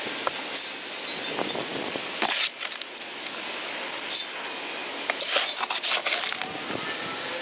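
Small pebbles tipped off a metal shovel into a post hole around a wooden post, clattering and clinking in several short pours: backfilling the post hole with stone.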